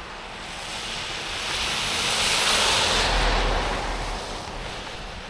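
A motor vehicle passing on a slushy, snow-covered road. The tyre hiss on the slush swells up, peaks with a low rumble at its loudest, and fades away over about four seconds.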